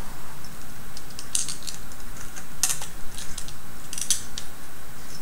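Scattered light clicks and taps of small machine screws, nuts and plastic parts being handled while fitting them by hand to a robot kit's circuit board and gearbox.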